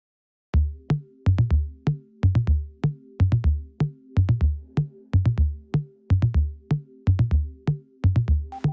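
Background electronic music: after about half a second of silence, a drum-machine beat starts, with low kick-drum hits and clicks repeating in a steady rhythm over a held synth chord.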